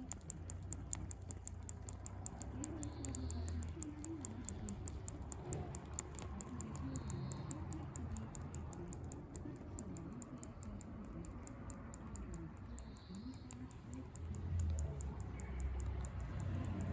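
Rapid, even, high-pitched ticking at about four ticks a second, the abnormal noise coming from a Techno Tracker. A faint short high tone sounds every four seconds or so.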